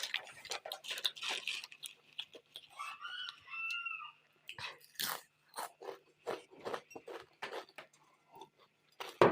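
Close-miked crunching and chewing of crisp packaged chips: irregular sharp crunches as the snacks are bitten and chewed, with the loudest bite near the end.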